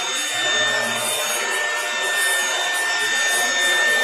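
CNC router spindle cutting a wooden door panel: a steady high whine over the continuous rasp of the cutter in the wood.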